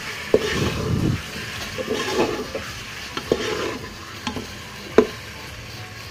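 Beef pieces frying in ghee with spices in a metal pressure cooker, sizzling as a metal slotted spoon stirs and scrapes them, browning the meat with its masala. The spoon clinks sharply against the pot a few times, loudest about five seconds in.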